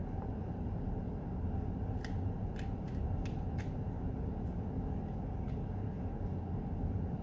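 Crisp little snaps and tears of a fresh Reaper x Scotch Bonnet pepper pod being pried apart by hand as its cut cap pops off. There are five quick clicks about two to four seconds in, over a steady low room rumble.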